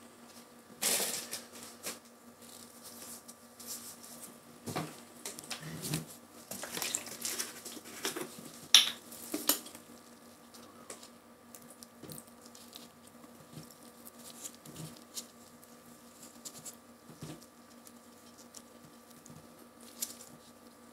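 Paper and plastic wound-dressing packaging crinkling and rustling as gloved hands open and handle gauze, in scattered crackles that are busiest in the first half, the loudest about nine seconds in. A faint steady hum runs underneath.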